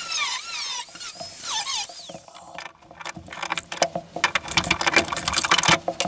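Angle grinder with a cutoff wheel cutting the sheet-steel bulkhead of a van: a shrill squeal that slides down and up in pitch as the wheel bites the metal. The squeal breaks off about two and a half seconds in and gives way to a rapid rattling clatter.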